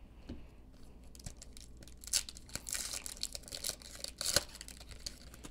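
Foil wrapper of a trading card pack being torn open by hand: crinkling with sharp crackles, busiest from about two seconds in until a little past four, after a few light clicks.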